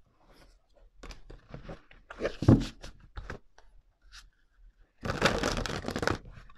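Tarot cards shuffled by hand: light taps and slides as the deck is squared, a thump about two and a half seconds in, then a riffle shuffle from about five seconds in, the cards flicking rapidly for just over a second.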